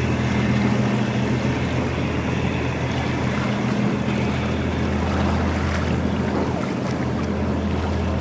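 Engine of the Spring Point pilot boat running at speed: a steady low drone, with the rush of its bow wave and wind buffeting the microphone.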